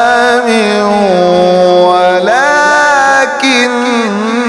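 A male Quran reciter chanting in the melodic mujawwad style, drawing out the word "ḥām" in one long ornamented phrase that rises in pitch about two seconds in.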